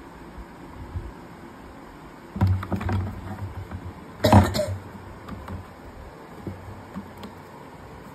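Plastic bucket knocking and rumbling on a hard floor as a kitten scrambles inside and rolls it over: a low rumble about two and a half seconds in, then one loud sharp bump about four seconds in, with lighter taps afterwards.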